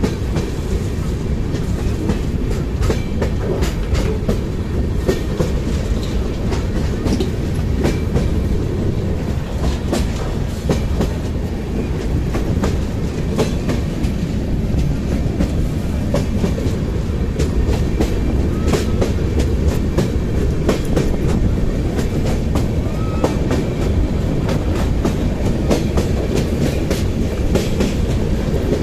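Neelanchal Superfast Express passenger train running over a river bridge, heard from an open coach door. A steady heavy rumble of wheels on the track, with irregular clicks and clanks of the wheels passing over rail joints.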